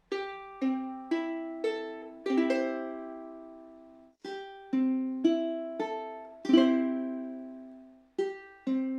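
Soprano, concert and tenor ukuleles played in turn. Each plucks its four G-C-E-A strings one at a time, then strums them together and lets the chord ring out. The second starts about four seconds in and the third near the end.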